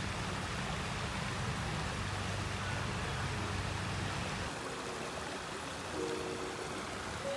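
Shallow creek water running over rocks, a steady rushing; faint background music comes in near the end.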